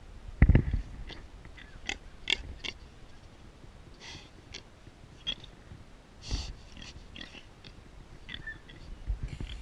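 Wild boar sniffing and breathing through its snout right at the microphone, with a few sharp clicks and a loud heavy knock about half a second in.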